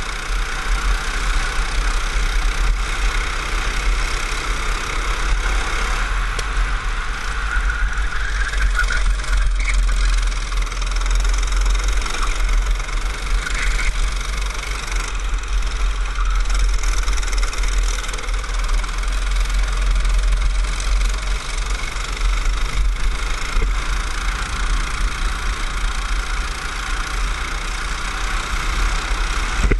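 Go-kart engine running at racing speed, its pitch rising and falling with the throttle, over a steady deep rumble.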